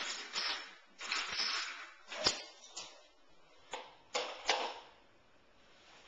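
Dishes being loaded into a dishwasher: clattering and several sharp clinks and knocks of crockery and utensils against the wire racks. The sharpest knock comes a little past the middle.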